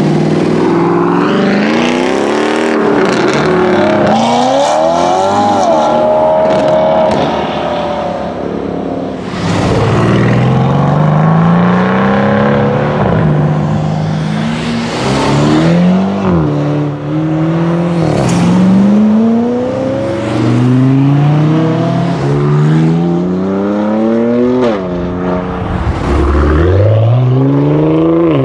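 A string of performance cars, Mercedes-AMG C63 V8 saloon and estate among them, accelerating hard away one after another. Each engine note climbs through the revs and drops sharply at every upshift, several pulls in a row, loud throughout.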